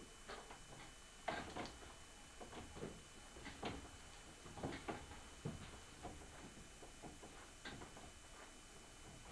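Soft, irregular clicks and knocks from a potter's wheel turning and hands working a wet clay pot on it, about a dozen light taps with no steady rhythm.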